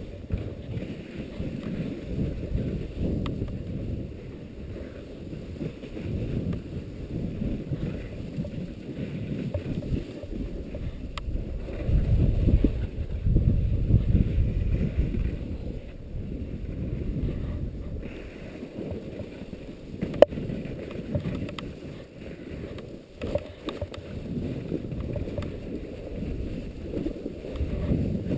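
Strong wind buffeting the action-camera microphone in uneven gusts, loudest about twelve to fifteen seconds in, with a few faint clicks.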